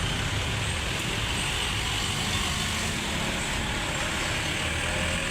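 Street traffic noise: the steady low rumble of vehicle engines running and passing, with no single event standing out.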